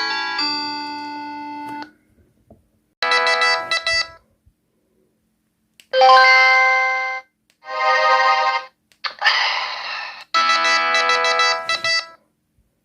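LG C1200 mobile phone playing its built-in electronic tones through its speaker: a multi-note melody that ends about two seconds in, then five short tones of about a second each, separated by brief pauses.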